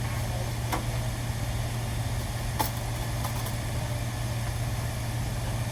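A steady low mechanical hum, like an engine or machine running, with a few light clicks scattered through it.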